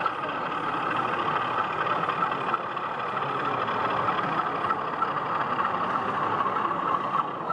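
Steady engine-like drone from a model diesel locomotive running slowly along the layout.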